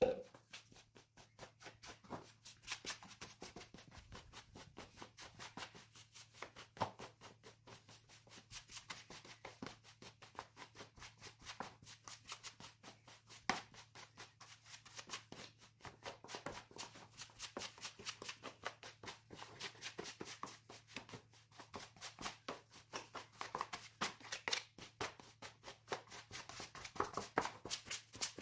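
Rapid, dense scraping and rustling of plastic dough scrapers against a plastic dough box as flour and water are worked into a stiff biga pre-dough, sped up as a time-lapse. A faint steady low hum runs underneath.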